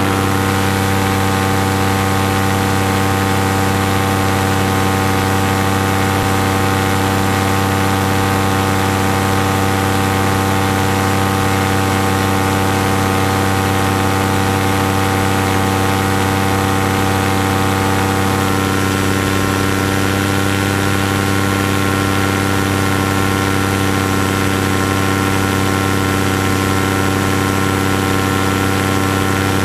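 Paramotor engine and propeller running steadily in flight, heard close up from a camera on the frame. The engine note shifts slightly about two-thirds of the way through.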